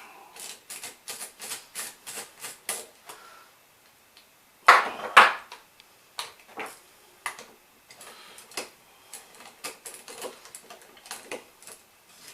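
Socket ratchet clicking in quick, even strokes, about three clicks a second, as it backs out the last inverted-Torx screw from a Badger 5 garbage disposal's housing. A couple of louder metal knocks come about five seconds in.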